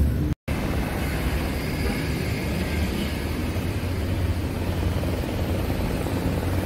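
Steady rumble and hiss of outdoor background noise, with no distinct event. There is a brief drop to silence just under half a second in.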